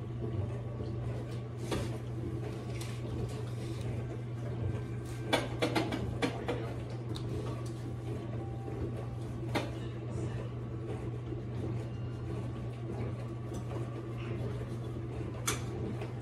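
Kitchenware handled at a stove: scattered clicks and knocks of pots, utensils and cupboard doors, with a cluster of them about five to six seconds in, over a steady low hum.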